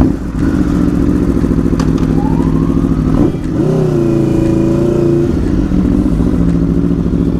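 Aprilia RSV4's V4 engine on its stock exhaust running at low revs as the bike pulls away slowly in first gear. The revs rise briefly about halfway through, then settle back.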